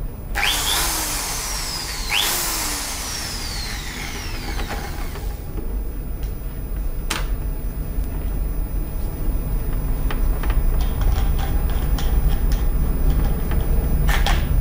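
Huspanda HRD 1301 corded drill run twice in short bursts: each time the motor whines up sharply on the trigger, then winds down in a long falling whine after release. After that comes low handling noise with a couple of sharp clicks as the drill is handled.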